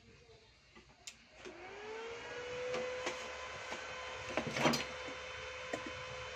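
Kamapro ARC-300A inverter arc welder switched on: after a click, its cooling fan spins up with a rising hum that settles into a steady whine. A short clatter about four and a half seconds in.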